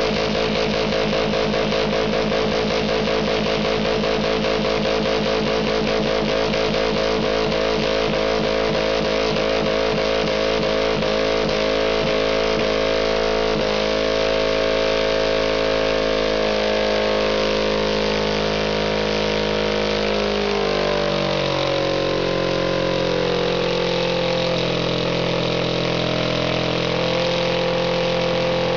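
Subaru Legacy's boxer engine running hard while it is blowing up, pouring smoke. The sound is loud and steady, and its pitch drops in steps about halfway through and again later.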